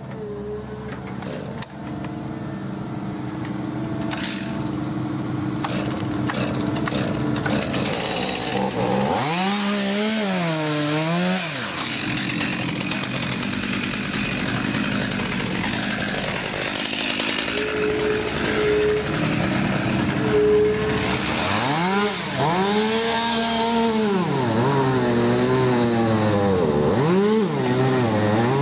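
Excavator with a hydraulic grab working: its engine runs steadily under load and revs up and falls back again and again, once in the middle and several times near the end.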